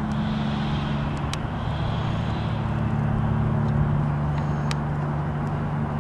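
Volvo ECR145EL excavator's diesel engine running steadily, its note shifting a little partway through, with a few sharp clicks.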